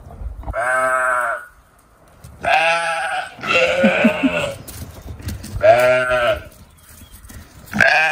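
Sheep bleating: about five long bleats one after another, with short gaps between them.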